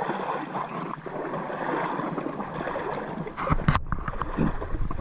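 Shallow creek water gurgling and splashing around a kayak as it moves along. About three and a half seconds in, a low rumble and a few knocks come in.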